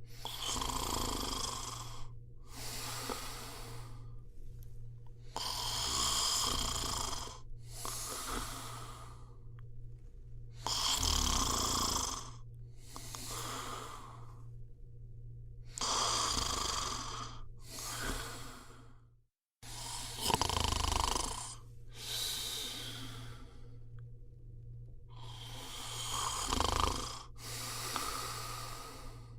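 A person snoring in slow, even breaths, about six breaths each heard as two noisy snores in quick succession, over a steady low hum. The sound cuts out for a moment a little past the middle.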